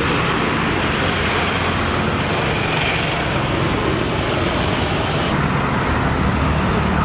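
Steady road traffic noise, with motor vehicle engines running.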